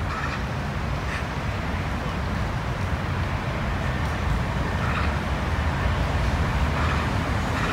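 Steady outdoor ambience: a low rumble with a hiss over it, like wind on the microphone or distant city traffic, with no clear single event.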